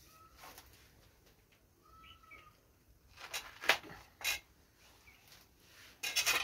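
Hard woody shell of a boiled bael fruit cracking as it is broken open by hand: a few sharp cracks about three to four seconds in, then a short burst of cracking and tearing near the end. A bird chirps faintly twice before the cracking.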